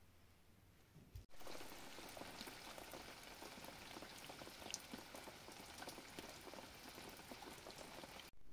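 Rain pattering on surfaces: a dense, even crackle of many small drops, setting in about a second in and breaking off just before the end.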